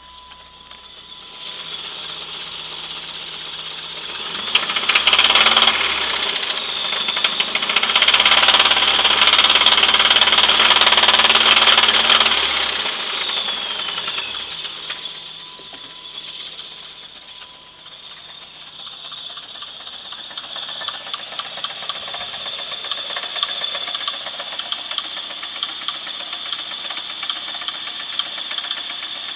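A 1996 Chevrolet S10's 2.2-litre four-cylinder engine running with a knocking noise whose cause is unknown. It is revved up for several seconds, then settles back to a steady idle with the knock still there.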